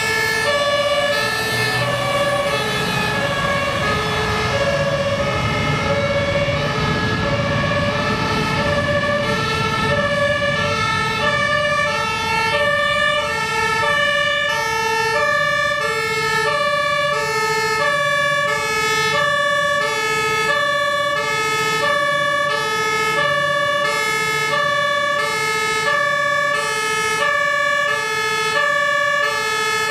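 Two-tone emergency siren of a Rosenbauer Panther 8x8 airport crash tender, stepping back and forth between two pitches about once a second without a break. The truck's engine runs underneath, loudest in the first third.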